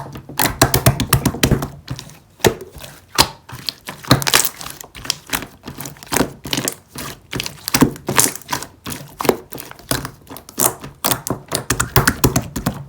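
Clear jelly slime being squished and poked by hand, giving a rapid, irregular run of sharp clicks and pops.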